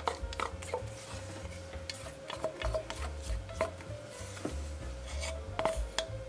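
Light clinks and scraping of a small stainless steel pot against a glass mixing bowl and wire whisk as melted chocolate is poured and scraped out, a series of short irregular ticks.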